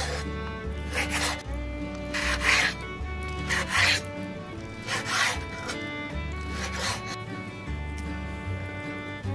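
Kitchen knife drawn through a pollock fillet against a bamboo cutting board: about six short scraping strokes, roughly a second and a half apart, that stop near the end, over background music.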